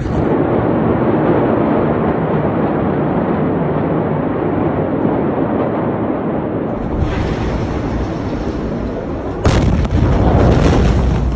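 Massive ammonium nitrate explosion: a continuous loud rumble, then about nine and a half seconds in the blast wave arrives with a sudden loud boom and crash as the phone is knocked about.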